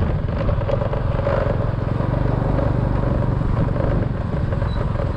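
Motorcycle engine running steadily while riding along a dirt road, with a constant low hum.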